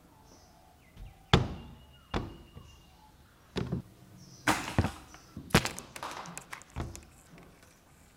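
A series of irregular hard knocks and thuds of plastic toy figures being knocked about and set down, the sharpest a little over a second in and a quick cluster of knocks in the middle.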